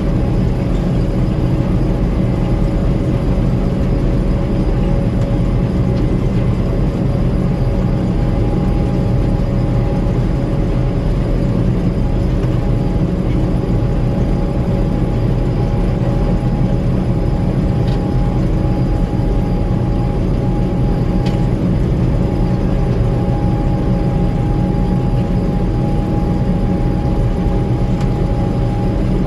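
Gleaner M2 combine running steadily while harvesting corn: a constant low machine drone with a steady whine above it.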